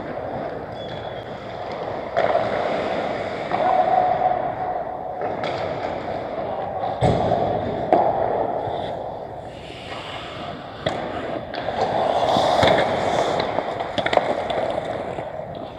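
Ice hockey skates scraping and carving on rink ice, with sharp clacks of sticks and puck a few times.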